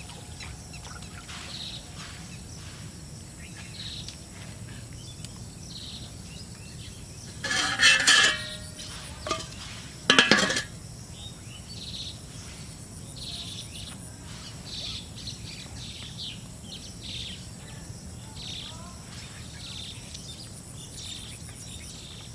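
Outdoor ambience of birds chirping repeatedly over a steady insect-like hum. Two loud, short, scraping or clattering noises break through about eight and ten seconds in.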